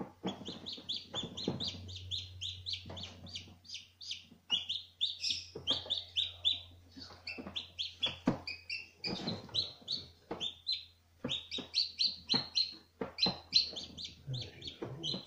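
Newly hatched Ayam Cemani chicks peeping continuously and rapidly, about three to four short high peeps a second. A faint steady low hum and a few clicks sit underneath.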